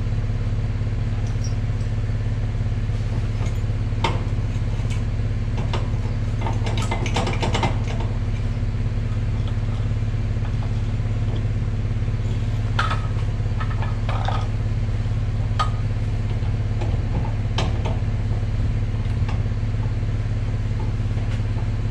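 Pickup truck engine idling steadily, with scattered metal clicks and clanks from the trailer hitch being worked, including a quick run of clicks about seven seconds in.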